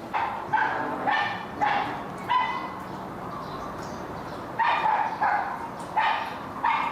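A dog barking repeatedly: about nine short barks, five in quick succession, a pause of about two seconds, then four more.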